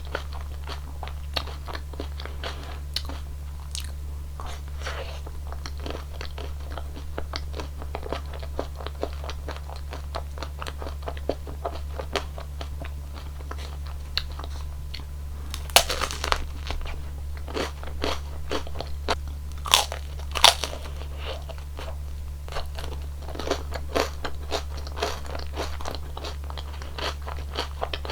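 Close-miked crunching and chewing of a cone ice cream with a crisp wafer cone: a steady run of small crunches, with a few louder, crisper bites about halfway through. A steady low hum runs underneath.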